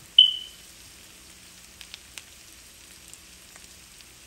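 Diced potatoes and onion sizzling gently in oil in a frying pan, with a few small crackles. A fraction of a second in, a single short high ping, the loudest sound, dies away quickly.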